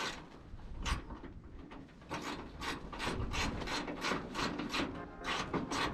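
Hand ratchet wrench clicking as a bolt is worked loose, with a few separate clicks at first, then a quick even run of strokes at about four a second from about two seconds in.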